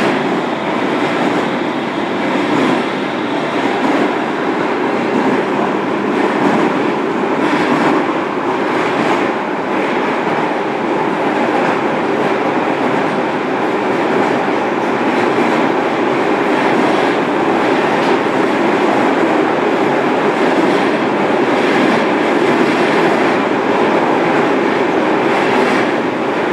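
Steady running noise of a JR Kyushu 305 series electric train, heard inside a motor car fitted with Toshiba permanent-magnet synchronous traction motors. Wheels are running on the rail at an even speed, with a few faint clicks.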